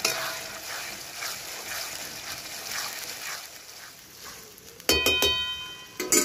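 Flat metal spatula scraping and stirring onion paste in a steel wok, a stroke about every half second. Near the end, two loud ringing clangs of steel utensils knocking together.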